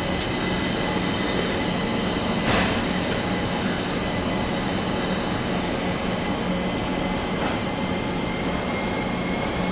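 Metro train heard from inside the car as it moves slowly along the platform: a steady running hum with high, even whining tones over it. A sharp clunk comes about two and a half seconds in and a fainter one near seven and a half seconds.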